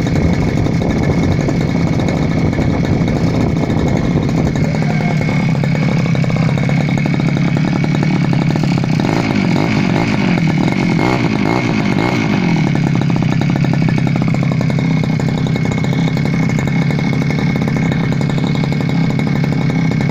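Petrol brush cutter (grass trimmer) engine running steadily after being started. Its note wavers and shifts in pitch for a few seconds midway, then settles again.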